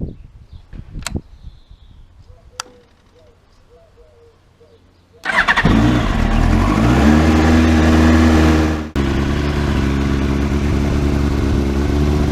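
A few knocks and clicks, then about five seconds in a carburetted Yamaha YZF-R1's inline-four engine starts and runs on loud and steady, with a brief break about nine seconds in. The owner says the bike is misfiring.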